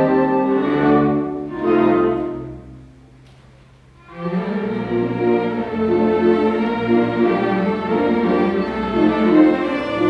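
Full orchestra playing a waltz, the bowed strings (violins, cellos, double basses) carrying the music. About two and a half seconds in the music dies away to a short hush, and about four seconds in the strings come back in.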